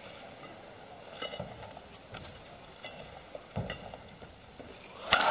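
Badminton rally: sharp racket-on-shuttlecock hits about once a second over faint hall ambience, with one much louder hit near the end.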